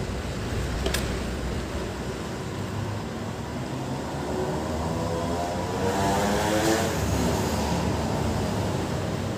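A passing vehicle over a steady low background rumble, swelling to its loudest about six to seven seconds in and then fading. A single sharp click about a second in.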